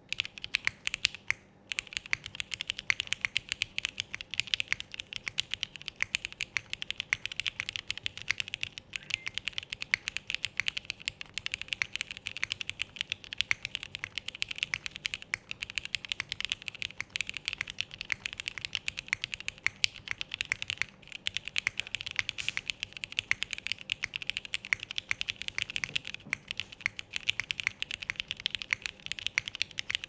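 Fast, continuous typing on a Neo65 mechanical keyboard with vintage Cherry MX Black linear switches and GMK doubleshot ABS keycaps, built plateless with no foam: a dense run of crisp keystroke clacks, with a brief pause about a second and a half in.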